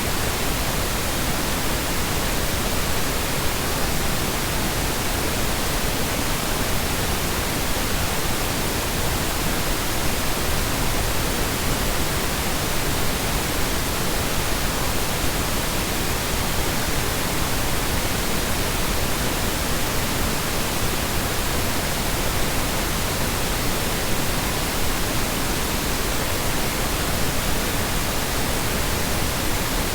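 Steady synthetic colour noise: an even hiss spread across the whole range, with no tones, loops or changes in level.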